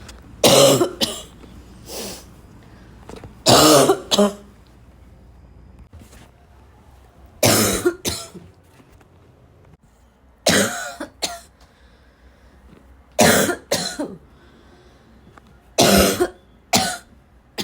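A person coughing in repeated bouts about every three seconds, most bouts two coughs in quick succession: a strong cough followed by a shorter one.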